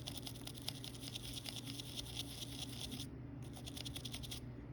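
Small brush scrubbing isopropyl alcohol over a water-damaged phone circuit board to clear corrosion: rapid, fine strokes, stopping briefly about three seconds in and again near the end.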